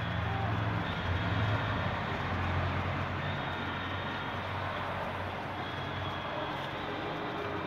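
Steady stadium crowd noise under a low hum, with no clear music or singing standing out.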